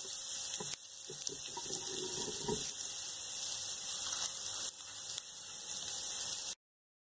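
Chopped onions sizzling in hot ghee in a kadai: a steady, hissy sizzle that cuts off suddenly about six and a half seconds in.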